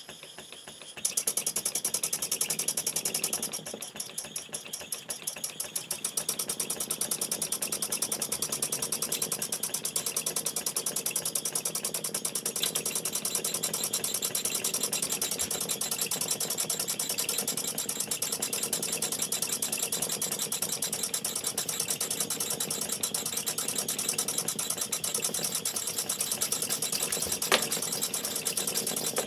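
Several small model Wig-Wag steam engines running together on the bench, a fast, even chuffing of exhaust puffs. The sound jumps louder about a second in as more engine is fed, sags briefly a few seconds later, then runs steadily; a single sharp click comes near the end.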